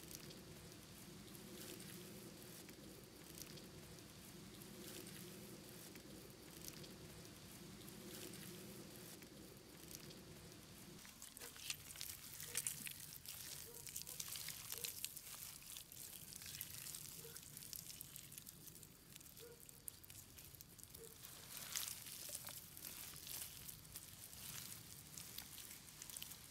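Faint sounds of hands squeezing and kneading lumps of wet clay: soft squelching and crumbling, with many small crackles from about halfway through. A faint steady low hum underlies the first half.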